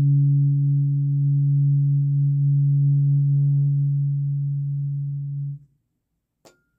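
A 141.27 Hz throat-chakra tuning fork ringing in a steady low pure tone, which stops abruptly about five and a half seconds in. A short faint click follows near the end.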